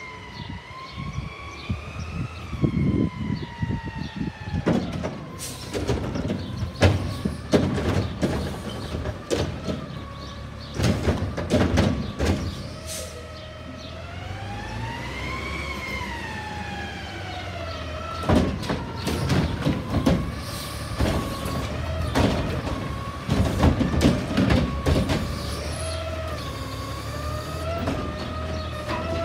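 Front-loader garbage truck with a Curotto-Can automated carry can working: its engine and hydraulic pump whine, rising and falling in pitch as it revs, with repeated metallic clanks and bangs from the arm, can and cart.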